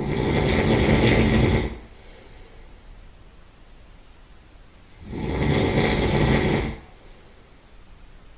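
A man's loud nasal snoring while he sleeps on his side: two snores about five seconds apart, each lasting under two seconds.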